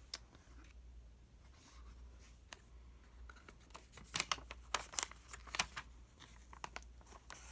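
Cardboard doll box being opened and tissue paper folded back by hand: faint sliding, light taps and paper rustles, busiest from about four to six seconds in.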